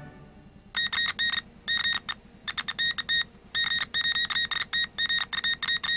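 A steady high electronic beep tone sounding in irregular clusters of short and longer beeps, in the manner of a Morse-code or teletype sting that opens a TV news bulletin. It starts about a second in and stops near the end.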